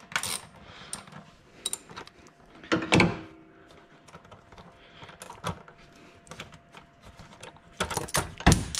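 Scattered metallic clicks and clinks of a socket wrench and hand tools being handled, with a louder knock about three seconds in and a cluster of clinks near the end.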